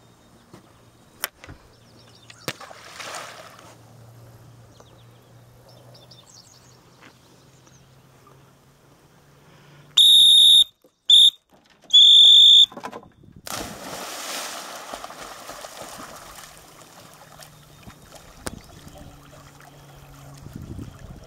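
Three shrill blasts on a dog training whistle about halfway through, long, short, long, followed by a few seconds of water splashing.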